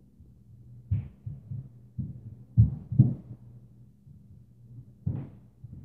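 Footsteps stomping on the floor of the apartment above, heard through the ceiling as heavy, dull thuds at an uneven pace. The loudest two come close together in the middle, and another comes near the end, over a steady low hum.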